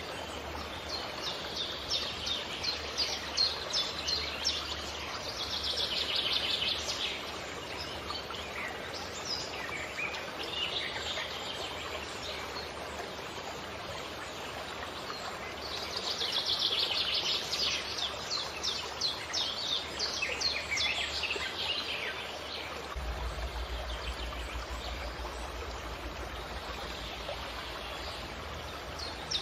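Several birds chirping and singing in bursts of rapid, high chirps over the steady rush of a stream.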